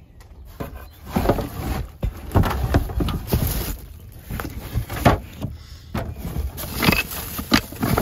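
Irregular rustling and knocking as a cardboard box of plastic-wrapped wooden beehive frame parts is handled.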